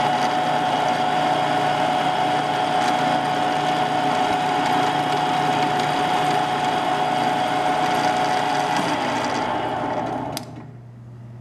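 Milling machine spindle running at speed with a steady whine, a carbide spot drill turning in it as it is brought down to the steel workpiece. The running noise cuts off near the end with a click, leaving a low hum.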